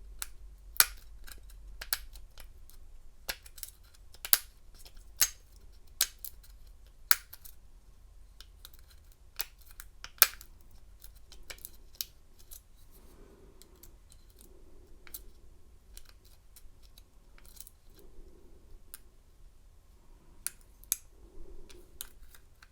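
Irregular sharp metallic clicks and ticks of a hook pick working the pin stack of a disc-style storage padlock during single pin picking, as the pins are lifted and set one at a time.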